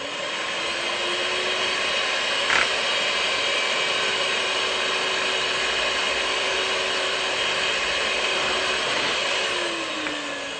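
Electric whisk running steadily as it whisks eggs and milk. It spins up at the start, gives a brief click about two and a half seconds in, and winds down near the end.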